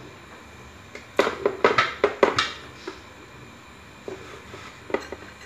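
Close-up eating sounds: a quick run of wet smacking and chewing clicks about a second in, then a few single smacks near the end.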